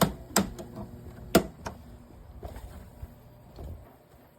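Several sharp clicks and knocks from handling a Danby window air conditioner, the loudest about a second and a half in, then fading to a few faint taps; the unit's fan motor has failed, so no fan is heard running.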